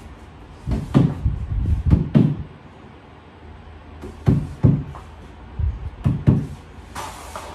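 Claw hammer knocking on the particleboard panels of a cube shelving unit, tapping them into place: dull knocks, about five in quick succession, a pause, then four more spaced out.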